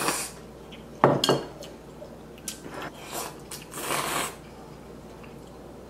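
Slurping instant ramen noodles and broth from a ceramic bowl held to the mouth, in several separate slurps, with a sharp clink of chopsticks or bowl about a second in.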